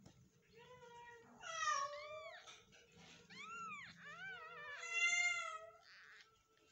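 Newborn Persian kittens mewing: a run of high, wavering mews, with the loudest about a second and a half in and again near five seconds.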